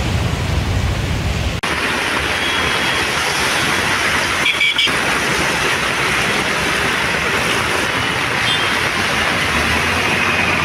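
Steady rushing noise of rain and water on a flooded city street, with road traffic. The sound changes abruptly about one and a half seconds in, losing its low rumble and growing more hissy.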